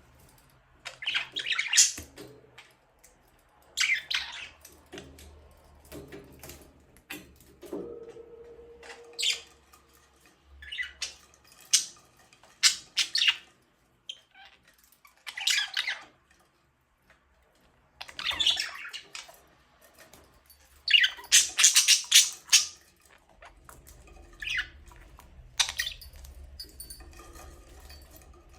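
Budgerigars giving short, harsh squawks and chirps at irregular intervals, with a dense flurry of calls about two-thirds of the way through.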